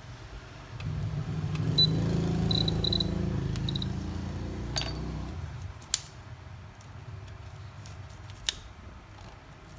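A machine hum, such as a blower or small motor, starts about a second in and stops about five seconds in, with several short high beeps over it. Two sharp clicks follow.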